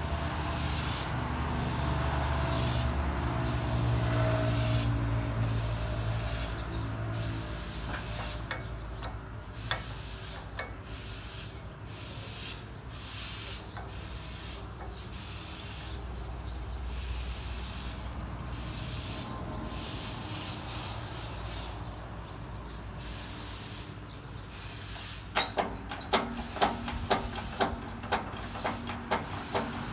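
Repeated short hissing bursts, about one a second, over a low hum that fades after the first few seconds; in the last few seconds, a run of sharp metal clicks and taps as a motorcycle crank half and connecting rod are shifted by hand on a steel press bed.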